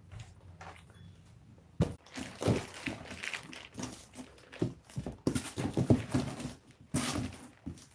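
A cardboard box with a polystyrene foam insert being handled: its flaps are opened and folded, with a sharp knock about two seconds in, then irregular thumps, scrapes and rustles of cardboard and foam.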